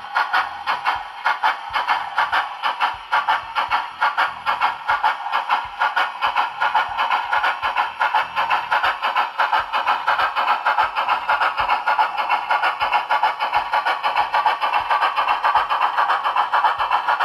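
SoundTraxx Tsunami 2 sound decoder in an HO-scale Union Pacific articulated steam locomotive model, playing a rapid, even exhaust chuff through the model's speaker as the train runs, with the two sets of drivers' chuffs drifting in and out of sync.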